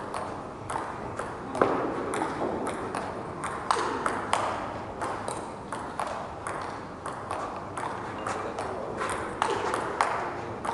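Table tennis rally: the celluloid ball clicking off the paddles and the table in a steady back-and-forth, about two hits a second, echoing slightly in the hall.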